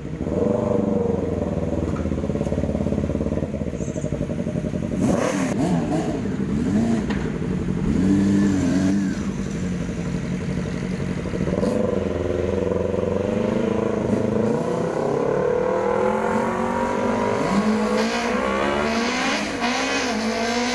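Several large motorcycles idling and revving as they pull away one after another, the engine pitch rising and falling with each twist of the throttle.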